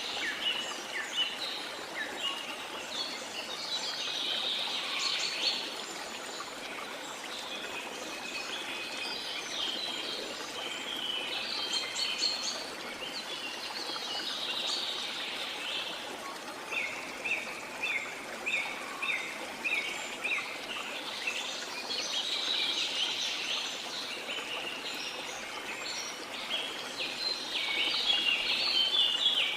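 Several birds chirping and calling over a steady rush of flowing river water. About halfway through one bird gives a run of short repeated notes, about three a second, and the birdsong cuts off suddenly at the very end, leaving the water.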